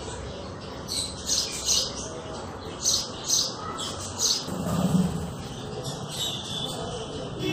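House sparrows chirping: a run of short, high chirps repeated at irregular intervals, with a short low sound about five seconds in.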